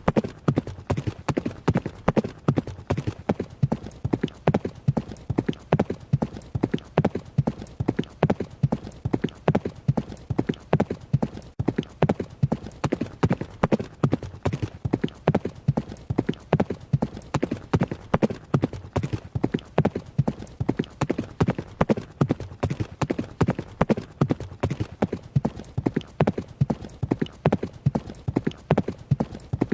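A horse running: its hooves strike in quick, evenly repeating groups of hoofbeats that keep up a steady rhythm with no break.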